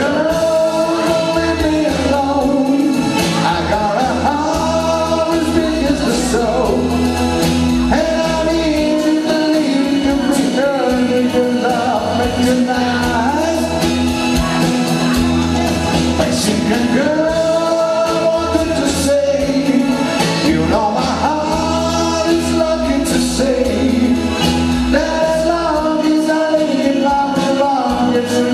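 A man singing a pop song through a microphone and PA over instrumental accompaniment, with a steady beat.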